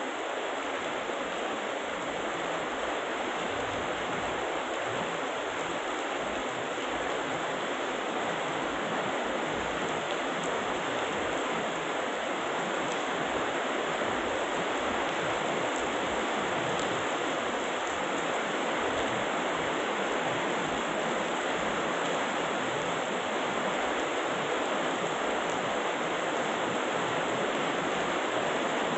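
Heavy rain falling steadily, a dense even hiss that grows slightly louder toward the end.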